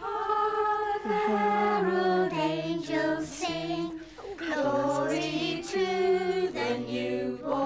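A group of people singing a song together, women's and a child's voices among them, in long held notes.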